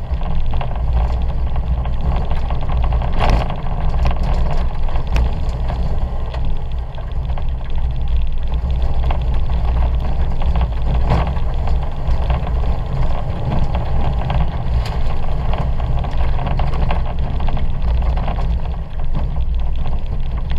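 Ford Fiesta 1.2's engine running hard, heard from inside the cabin, over a steady low rumble of tyres on a rough dirt and grass course. Scattered sharp knocks and clatter break through now and then.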